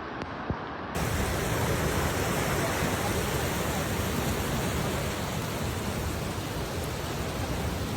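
Steady rushing noise of floodwater, growing louder and brighter after an abrupt cut about a second in.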